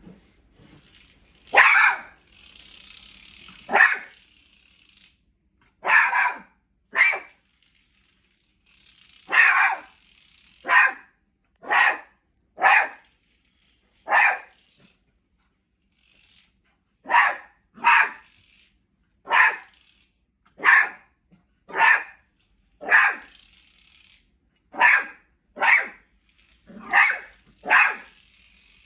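Beagle puppy barking at a new cat toy: about nineteen single sharp barks, one every second or two, with a few short pauses.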